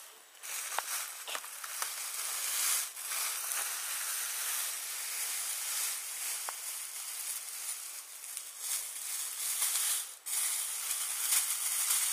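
Thin plastic bag crinkling and rustling as a load of small wrapped Frooties candies is tipped out of it, the candy wrappers rustling against one another as they spill and are spread by hand.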